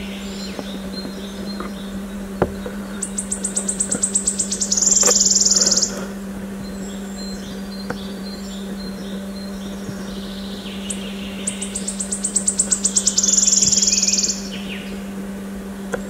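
Wood warbler singing twice: each song a run of high ticking notes that speeds up into a shivering trill about a second long, the first about three seconds in, the second about eleven seconds in. A steady low hum runs underneath.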